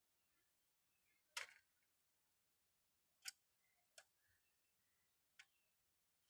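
Pigeons pecking at food: four faint, sharp taps at uneven intervals, the first the loudest.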